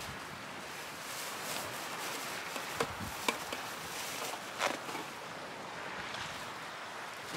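Steady outdoor wind and water noise, with a few short sharp clicks and knocks about three and four and a half seconds in.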